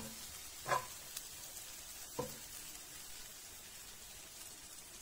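Barberries sizzling in butter in a nonstick frying pan, with a wooden spatula knocking against the pan three times in the first two and a half seconds as they are stirred.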